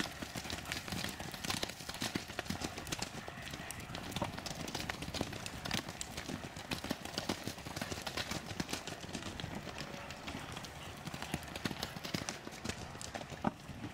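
Hoofbeats of several ridden horses cantering across a field, a run of irregular thuds as they pass one after another.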